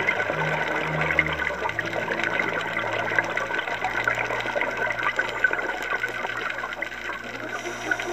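Underwater ambience heard through a dive camera's housing: a steady crackling, rushing water noise.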